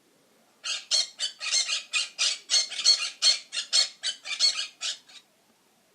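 Parrot squawking: a fast run of short, harsh squawks, about four a second, stopping a second before the end.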